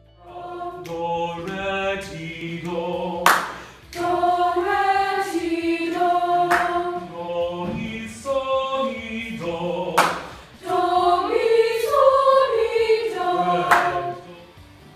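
Junior high school choir singing together, in several phrases with short breaks between them.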